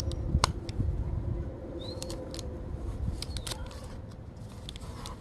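Sharp clicks and crinkles of product packaging being handled, over a steady low hum and rumble of outdoor background noise, with a short high chirp about two seconds in.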